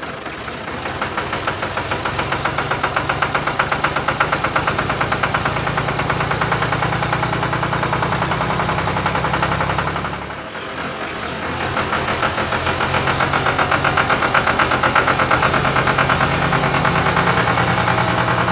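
Tractor-style engine running with a rapid, even knock. It dips briefly about ten seconds in, then builds back up and holds steady.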